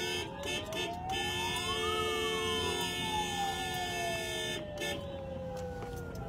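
Car horns honking: a few short beeps, then one long held honk, then more short beeps. Through it a siren wails once, rising for about two seconds and then falling slowly.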